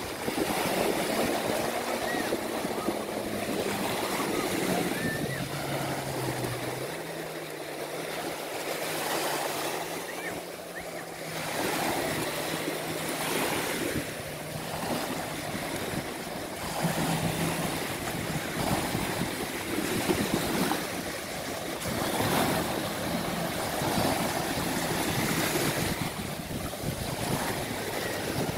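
Surf washing onto the beach in repeated swells, with the fainter engine of a jet ski running under it as it tows an inflatable tube. The engine's pitch drops a few seconds in, holds steady, then fades away after about the middle.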